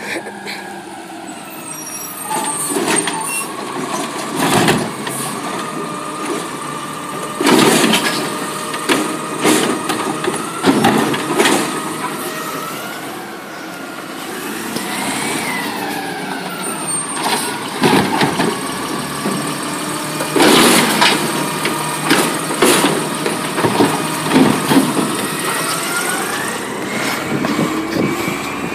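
Mack garbage truck collecting recycling: the engine rises and falls in pitch as it works, with repeated sharp clanks and bangs.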